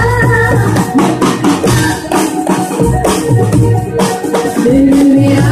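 Live band playing a Hindi film song, with drum kit and rattling hand percussion to the fore over pitched instruments.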